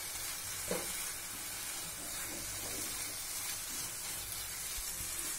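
Grated carrot halwa sizzling in a non-stick frying pan while a spatula stirs through it, with a few light scrapes.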